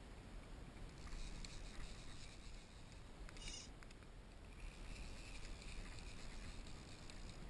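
Small waves lapping against a plastic kayak hull, over a low, steady rumble of wind on the microphone, with a brief hiss about three and a half seconds in.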